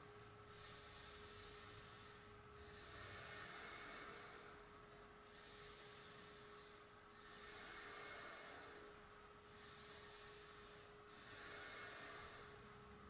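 Faint, slow yoga breathing held in a pose, each breath swelling and fading, about one full in-and-out every four seconds. A faint steady hum runs underneath.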